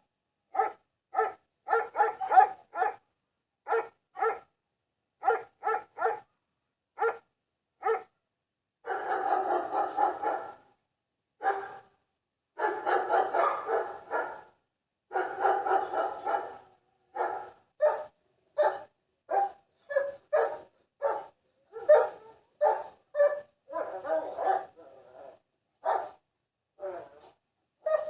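Dog barking in a long series of sharp barks, mostly single and spaced apart, breaking into quick runs of rapid barking a few times along the way.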